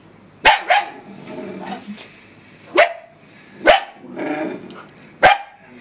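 A puppy barking in short, sharp barks: a quick pair about half a second in, then three single barks spaced a second or more apart. She is barking at her own reflection in a laptop screen, as if at another dog.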